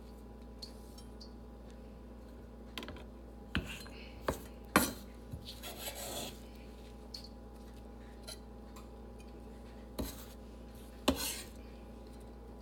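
Kitchen utensils clinking and knocking against dishes, with a brief scrape, as chopped spinach is put into a mixing bowl: a handful of separate sharp knocks spread over several seconds, the loudest about five seconds in.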